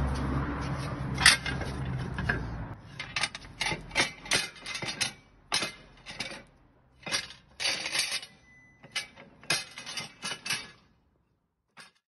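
Irregular metallic clinks and scrapes from a 2016 Ford Transit's brake, where a displaced pad has let metal grind into the rotor, with a brief squeal about two-thirds of the way through. A steady low hum runs under the first couple of seconds.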